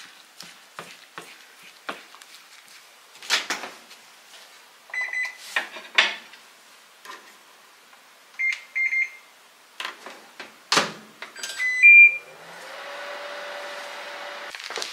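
Spoon clinking against a ceramic bowl while stirring, then a microwave oven: a few short control-panel beeps, the door shutting with a knock, more beeps, and the oven starting up with a steady hum and a held tone near the end.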